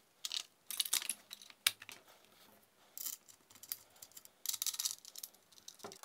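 Kar98k rifle's steel trigger guard and magazine assembly being fitted into its wooden stock by hand: a scattered series of short metal clicks, knocks and light scrapes, busiest a little before the end.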